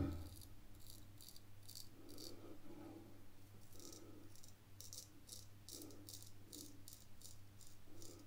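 Drew Dick 8/8 smiling straight razor shaving the lathered upper lip with the grain: short strokes cutting stubble, each a faint crackling scrape, about three a second, with a pause near the middle.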